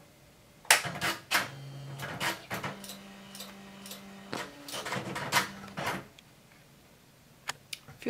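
Tandy electric typewriter/word processor's startup noise as it powers on: a rhythmic series of sharp mechanical clacks and clicks with short motor whirs between them, lasting about five seconds, followed by two faint ticks near the end.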